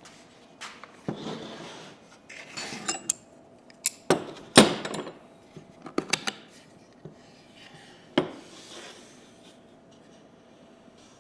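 Sharp knocks and clatter mixed with short scraping and rubbing strokes, as wood and hand tools are handled and worked on a workbench. The loudest knock comes about halfway through, and it goes quieter near the end.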